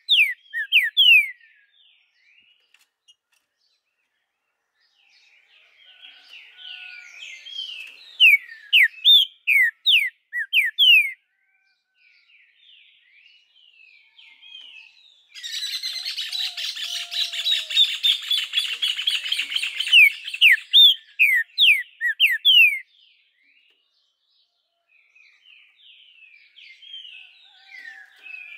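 Green-winged saltator (trinca-ferro) singing in bursts of loud whistled phrases made of quick down-slurred notes, with pauses between phrases. Near the middle comes a dense, rapid chattering rattle lasting about five seconds.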